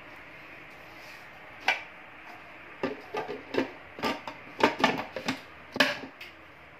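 Kitchenware being handled on a counter: a run of irregular light clicks and knocks of hard plastic and glass, starting about two seconds in and coming thickest in the second half.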